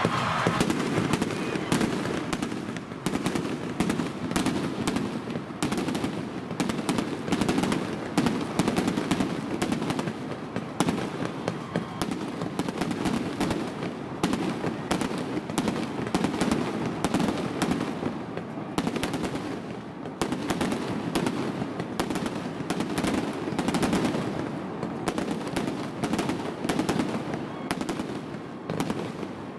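Aerial fireworks bursting close overhead in a dense, rapid barrage of bangs and crackles with no let-up, with no delay between each flash and its boom.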